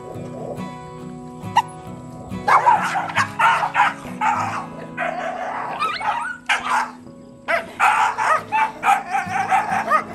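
Dogs fighting over food at a shared feeder: repeated clusters of loud growling and barking, starting about two and a half seconds in, over background music.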